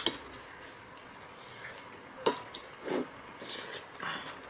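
Utensils clinking against dishes a few times during a meal, with softer eating noises between.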